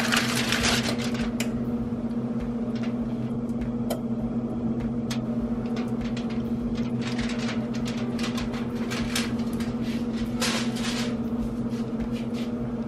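Aluminium foil crinkling as it is peeled off a hot baking pan, then scattered small pops and crackles from the pan of freshly baked beef patties and their fatty juices. A steady motor hum runs underneath.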